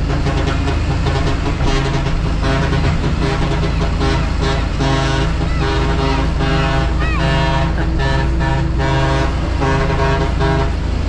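A truck's "ong vàng" (yellow-bee) musical horn playing a tune in a run of short pitched phrases with brief breaks, with a few quick chirping glides about seven seconds in. A steady low truck engine drone runs underneath.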